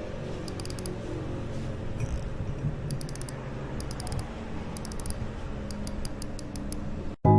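A small mechanism clicking in short runs of four to six quick ticks, several times over, above a steady low rumble.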